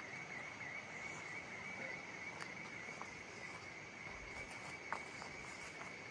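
Steady high-pitched insect drone with a slight waver, running unbroken. A few faint clicks are scattered through it, the sharpest about five seconds in.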